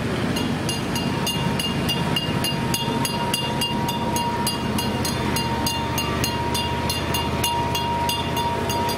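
Small trackless novelty train rolling past with its motor running, with a metallic bell-like ringing struck about four times a second and a thin steady whine.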